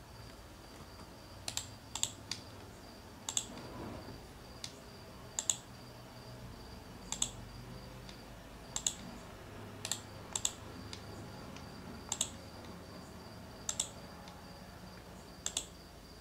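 Sharp clicking at a computer, single clicks and quick pairs coming every one to two seconds. A faint steady high whine runs underneath.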